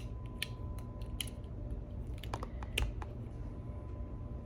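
Scattered light clicks and taps from handling a phone's retail box and its contents, with a small cluster of clicks a little past the middle.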